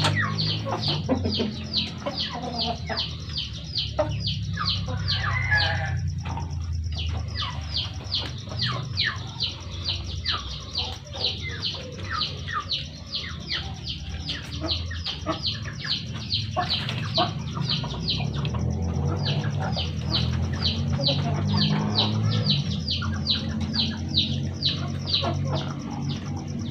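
Chicken peeping in a rapid, steady series of short high falling calls, about three to four a second, with a few brief pauses, over a low steady hum.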